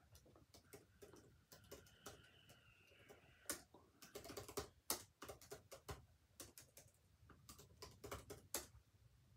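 Typing on a computer keyboard: quiet, irregular keystrokes, some in quick runs.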